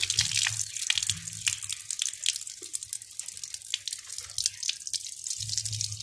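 Running water from a tap pouring onto a concrete floor, a steady spatter of many small splashes.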